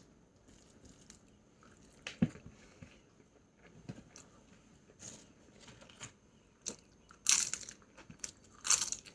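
A person eating and chewing, with scattered small mouth clicks and two louder crunching bursts near the end.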